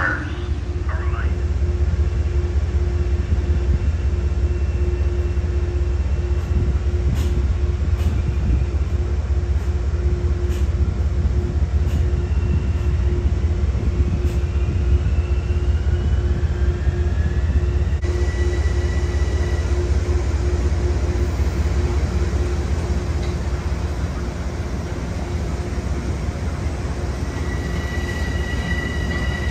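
Passenger train running at close range: a steady heavy rumble with a constant low hum, faint high wheel squeals and a few sharp clicks from the rails.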